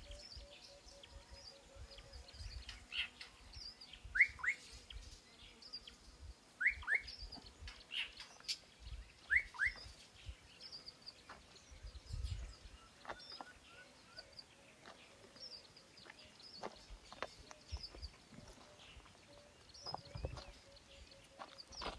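Birds calling: a two-note rising whistle repeated three times, about two and a half seconds apart, over many short high chirps.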